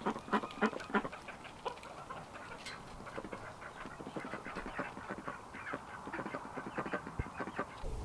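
A flock of domestic poultry clucking and chattering: a quick, irregular run of short calls, loudest in the first second.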